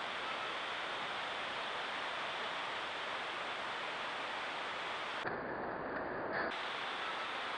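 Steady hiss from a Browning trail camera's built-in microphone, with faint outdoor ambience beneath it. About five seconds in the hiss turns duller for roughly a second, then returns.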